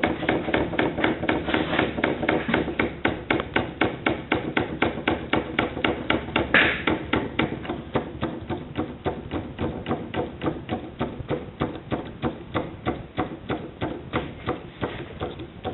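Small 1960s school-built Stirling hot-air engine running slowly, its crank, connecting rod and linkage clacking in a steady rhythm of about four knocks a second. The knocks get somewhat softer toward the end.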